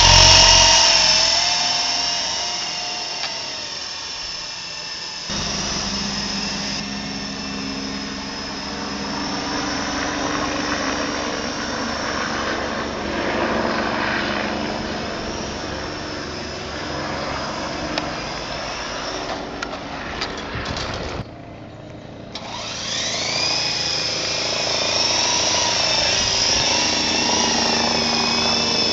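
Flying Gadgets T43 coaxial RC helicopter's electric motors and rotors whining in flight, loudest at the start while it is close and fainter as it flies off. Near the end the sound drops briefly, then the whine rises in pitch as it is throttled up.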